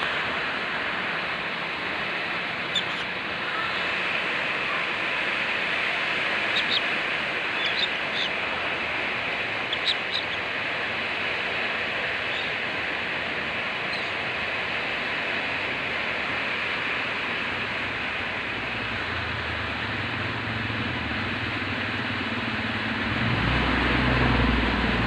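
A steady rushing background noise, with a few short, high chirps from a white-face cockatiel scattered through the first half. A low rumble comes in about two thirds of the way through and grows louder near the end.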